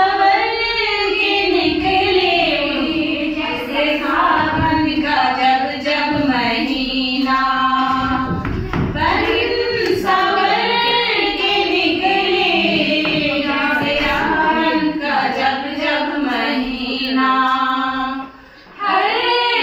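Women singing a song together into a microphone, in long held notes.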